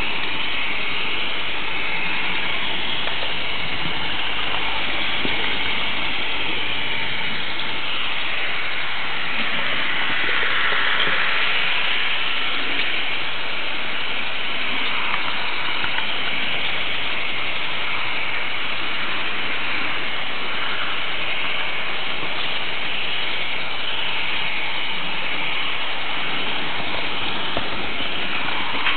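H0 model train running along Märklin track, picked up by a small camera riding on a flat car: a steady rolling noise of wheels and motor that keeps up without a break or a clear rhythm.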